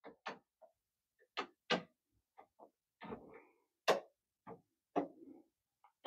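Light, irregular plastic clicks and taps, about ten in all, as a handheld voltage tester is knocked against circuit breakers in an open breaker panel.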